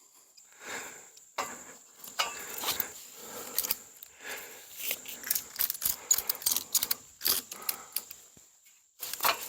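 Metal ladder stand being handled and shifted: repeated clinks, knocks and rattles with rustling, mixed with heavy breathing.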